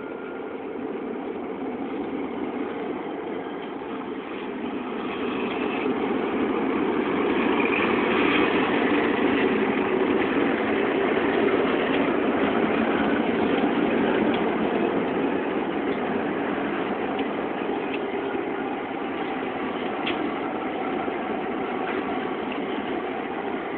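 A three-unit consist of Housatonic Railroad diesel locomotives passing close by, engines running. The sound builds to its loudest about eight seconds in, holds, then eases slightly as they go by.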